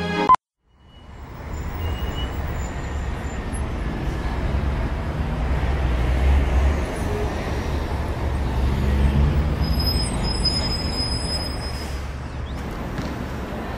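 Music cuts off with a click just after the start; about a second later a steady low rumble of distant city traffic fades in and holds. A few faint high-pitched tones sound briefly late on.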